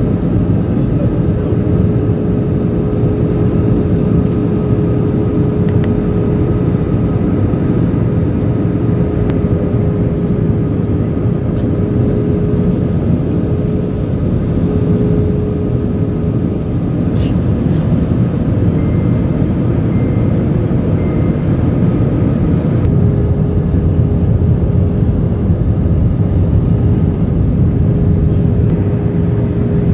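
Steady cabin noise of a jet airliner in descent: the engines and rushing air make a constant drone with a steady hum tone running through it.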